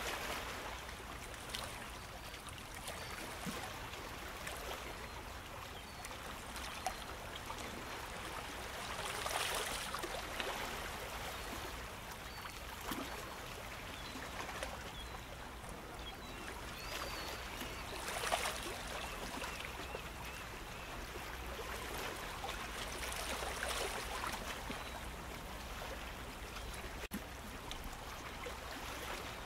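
Ocean surf washing onto a beach: a steady rush of water that swells four times as waves break and run up the sand.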